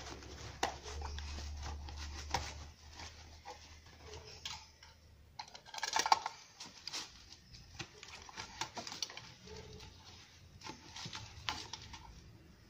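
Handling noise as a metal mint tin and other small items are pushed under the elastic straps of a nylon first-aid pouch: scattered clicks, taps and rustling, with a louder clatter about six seconds in.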